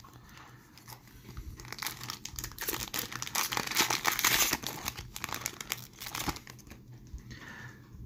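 Foil wrapper of a Tim Hortons Upper Deck hockey card pack crinkling and tearing as it is ripped open by hand, loudest about halfway through and dying away near the end.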